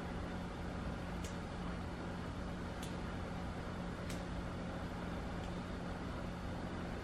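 Fresh parsley being picked off its stems by hand: three faint, crisp snaps spaced over a second apart, over a steady low hum.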